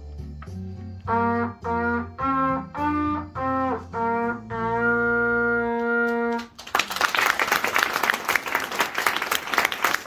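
A trumpet, played by a young student, plays a run of short notes over a low accompaniment, then holds one long final note that stops about six and a half seconds in. Audience applause follows.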